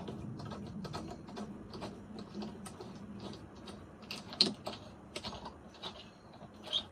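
Irregular light clicks and taps of small drawer-knob hardware (screw, thin washers, knob) being handled and fitted together, with a sharper click about four and a half seconds in.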